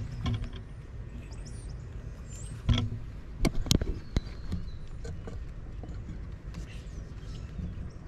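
Outdoor ambience of low wind rumble on the microphone with faint, brief chirps of small birds, broken by a few sharp knocks around the middle from the camera being handled.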